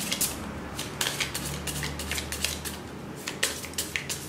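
A deck of playing cards shuffled by hand: a quick, irregular run of crisp card clicks and snaps, several a second.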